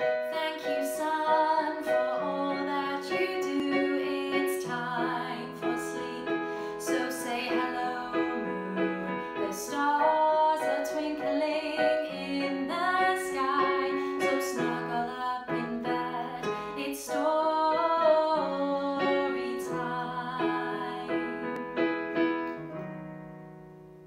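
A woman singing a song while accompanying herself on an electronic keyboard, ending on a held chord that fades away.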